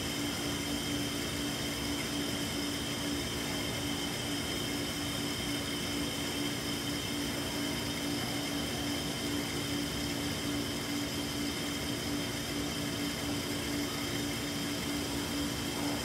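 Pet store aquarium ambience heard up close: a steady low hum of the tank equipment over an even hiss, unchanging throughout.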